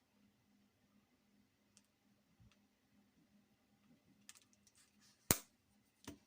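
A few faint clicks over a low steady hum, then one loud sharp click about five seconds in and a couple more clicks near the end, from the mobile phone being handled and its keys pressed.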